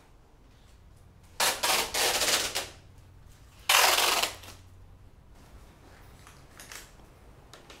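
Adhesive warning tape ripped off its roll in loud, noisy rasps: a few quick tugs about a second and a half in, then one longer pull around four seconds. Two faint snips of scissors cutting the tape near the end.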